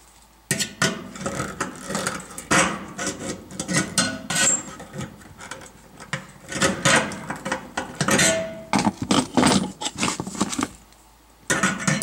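Pliers working a sheet-metal knockout tab at a range's cord opening: irregular metallic clicks, knocks and scraping of steel on steel, with a short pause shortly before the end.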